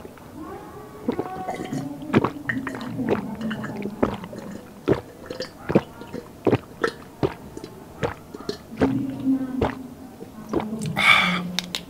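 Close-miked gulping of lemon water from a glass jar: a steady run of swallows, each with a sharp throat click, about one and a half a second, with low throat tones between them. A breathy rush of air comes near the end.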